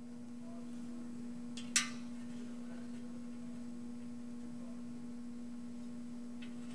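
A steady single-pitched hum that fades in and then holds level. About two seconds in, one sharp metallic click, as of a telescoping bore gauge being handled in the cylinder bore.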